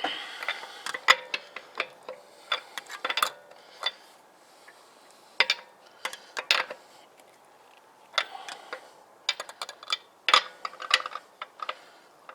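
Metal lug wrench clicking and clinking on a car wheel's lug nuts as they are tightened: sharp metallic clicks in several quick clusters, with short pauses in between.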